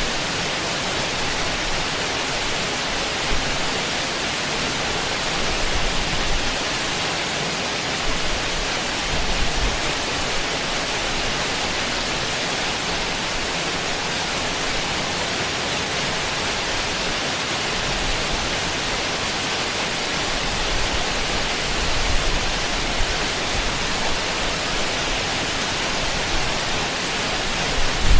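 Steady rushing noise with no distinct events, and a few faint low rumbles now and then.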